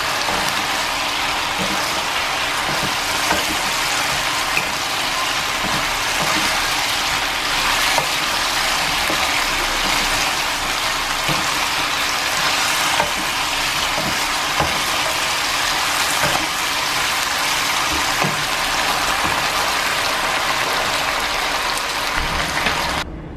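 Thick braising sauce sizzling and bubbling in a wok with chicken wings, a steady hiss broken now and then by knocks of a wooden spatula against the pan as the food is tossed.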